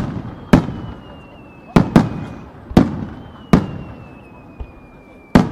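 Starmine fireworks: aerial shells bursting in quick, uneven succession, about seven loud bangs, each echoing away. A faint high whistle slides slowly down in pitch between the bursts.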